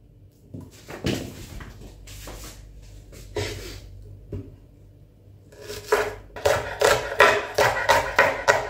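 Chef's knife chopping on a wooden cutting board while mincing shallots. A few scattered knocks come first, then from about six seconds in a fast run of chops, about four a second.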